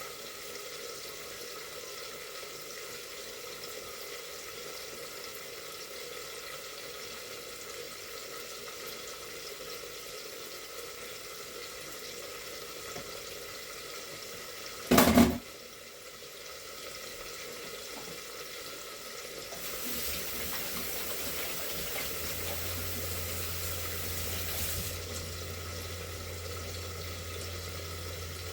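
Kitchen sink tap running for about five seconds, over a steady background hum. A single sharp knock comes about halfway through, and a low hum starts while the water runs and carries on.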